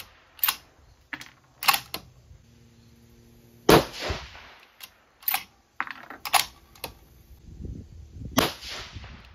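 Two shots from a 6mm BRA bolt-action rifle, about four and a half seconds apart, each with a short echoing tail. Between them come the sharp clicks of the bolt being worked to eject and chamber rounds.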